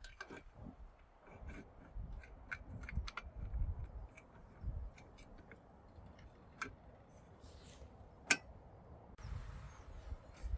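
Scattered light clicks and knocks with a few low thuds, one sharper click about eight seconds in; no saw is running.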